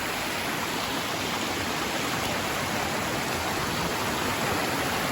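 Water of a cascading mountain stream rushing over rocks in a steady roar.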